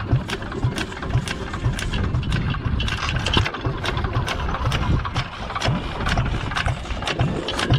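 Small antique Bull Dog stationary gas engine running, with sharp mechanical clicks about three or four times a second over a steady low thumping.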